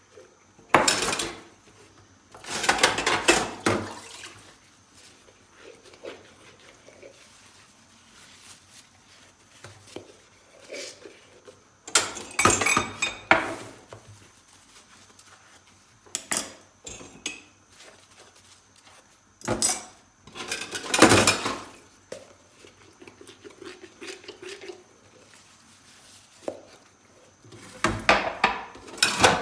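Dishes and cutlery being handled and washed by hand in a sink: clinks and clattering in several separate bursts a few seconds apart, with quieter handling sounds between.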